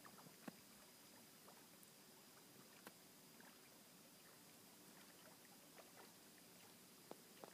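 Near silence: a faint steady hiss of outdoor background, broken by a few soft ticks.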